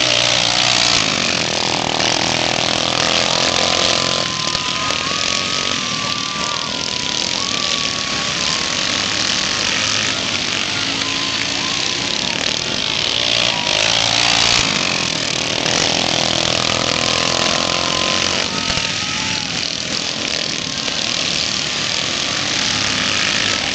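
Small single- and twin-cylinder racing lawn mower engines running hard as the mowers lap a dirt track. Their pitch rises and falls as they go by, and the sound swells twice as the pack passes.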